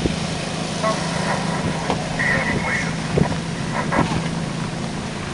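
A vehicle engine running with a steady hum over broad road-like noise, broken by a few brief clicks and short high chirps.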